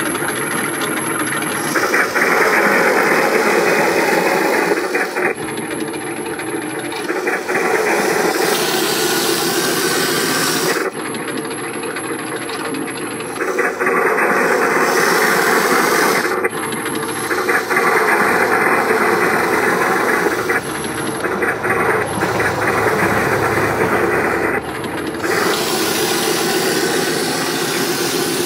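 Small homemade tracked robot running on its electric drive motors and tracks, a steady whirring noise that shifts every few seconds as it manoeuvres, with a thin high whine that comes and goes.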